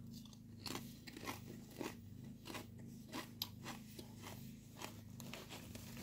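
A person chewing a mouthful of potato chips: faint, irregular crisp crunches, over a steady low hum.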